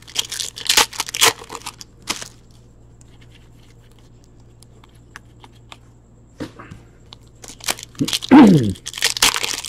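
A foil hockey card pack is torn open and its wrapper crinkled, then the cards are handled. The tearing and crinkling are loudest in the first two seconds or so. A quieter stretch with faint taps follows, and the rustling handling starts again near the end.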